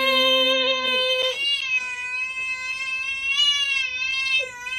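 Cat yowling in long, drawn-out meows: two long calls with a short break about a second and a half in.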